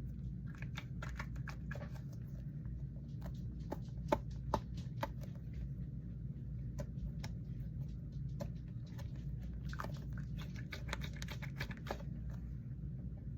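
A squishy fidget toy handled close to the microphone, giving clusters of small clicks and taps: two sharper clicks about four seconds in, and a dense run of clicks near the end, over a low steady hum.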